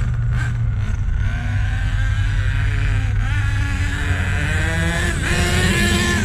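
Two-stroke nitro glow engine of an HPI Savage RC truck running just after a cold start, its pitch drifting up and down with the throttle.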